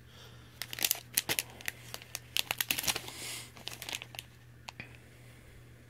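Plastic candy-kit packet crinkling as it is handled and turned over in the hand. A run of quick crackles fills the first three seconds or so, then only scattered ones follow.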